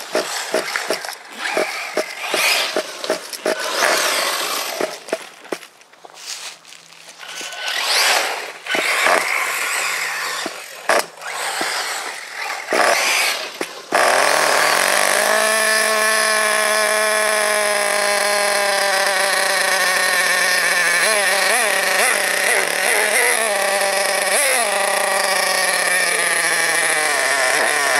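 Hobao Hyper ST truggy's Mac28 six-port nitro engine going through repeated start attempts in short, uneven bursts, then catching about halfway and running at a steady high idle. The revs flicker a few times and drop slightly near the end.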